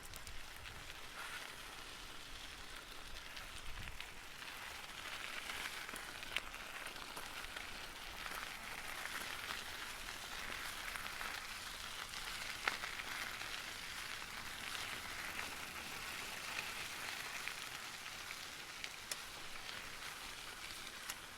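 Bicycle tyres crunching over gravel as the bike is ridden: a steady gritty crackle with occasional sharper clicks of stones.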